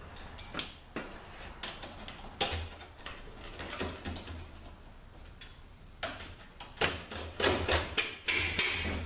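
Irregular metal clicks and knocks of a speed handle and socket working the governor cover bolts on a THM-125C transmission case, coming thicker in the last few seconds.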